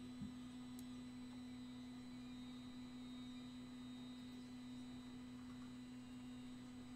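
Faint steady hum at one low pitch, with a single soft click shortly after the start.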